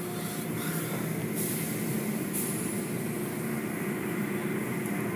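Automatic car wash running: soft-cloth brushes swishing over a car amid spraying water and foam, over a steady machinery hum. The spray hiss swells briefly twice in the first half.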